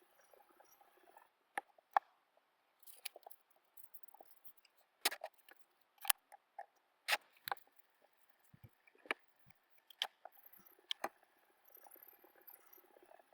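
Sharp kitchen knife cutting in a sharpness test: about a dozen crisp, irregular cuts, clicks and crunches, with a brief crackling run a few seconds in.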